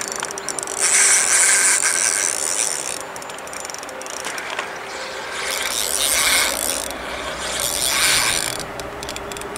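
Spinning reel being cranked to wind in line, a whirring, ratcheting mechanical sound that comes in several spells.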